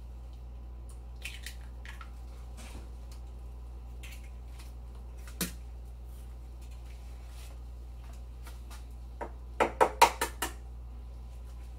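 Kitchen handling sounds: a few soft clicks and a brief plastic-like rustle, then a quick run of about six sharp knocks near the end, the loudest part, over a steady low hum.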